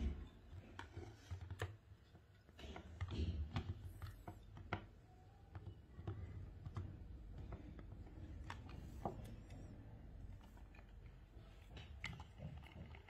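Scattered light clicks, taps and knocks of a plastic toy monster truck being handled and turned over in the hands, with soft low bumps from the handling.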